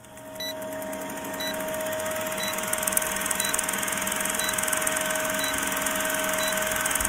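Old-film countdown leader sound effect: a film projector's steady whir with crackly hiss and a constant hum, and a short high beep about once a second as the numbers count down.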